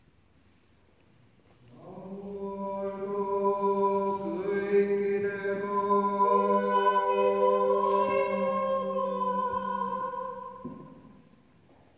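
Choir singing slow, long-held chords in a reverberant church, starting about two seconds in and fading away about ten seconds in.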